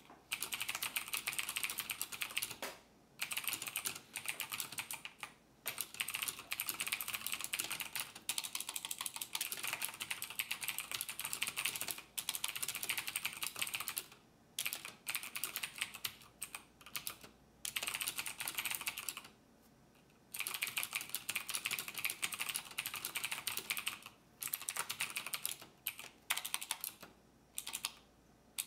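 Fast typing on a computer keyboard: dense runs of key clicks lasting a few seconds each, broken by brief pauses, the longest about two-thirds of the way through.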